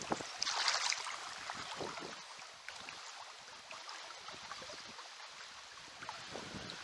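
River current flowing and lapping around a wading angler's legs, with a brief louder rush of water about half a second in, then a steady, quieter wash with small splashes.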